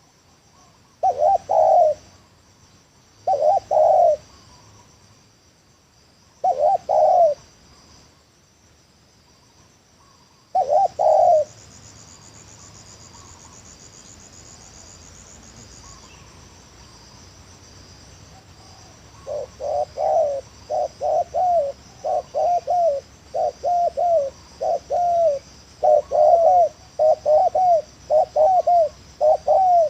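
Spotted dove cooing: a few separate coo phrases spaced a couple of seconds apart, then from about twenty seconds in a quick run of many short, broken coos, the stuttering 'gagap' call prized by dove keepers. Crickets chirr steadily underneath.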